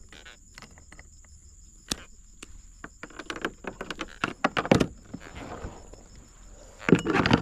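Fishing pliers clicking and snapping on a caught fish's spines while the fish is handled over a plastic kayak deck, in a run of irregular small clicks and knocks that thickens midway, with a louder rattling burst near the end.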